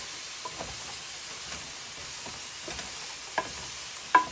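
Chop suey sizzling as it fries in a pan, a steady hiss, with a few short sharp clicks, the loudest near the end.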